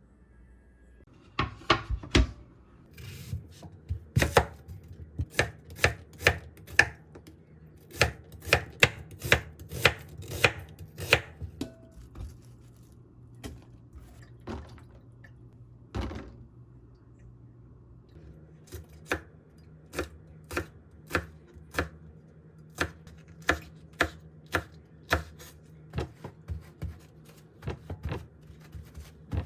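Kitchen knife chopping food on a cutting board: uneven strokes, a short pause in the middle, then a steady run of about two chops a second.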